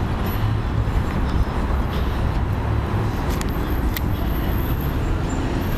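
Steady outdoor street noise: a low rumble of road traffic, with a few faint clicks.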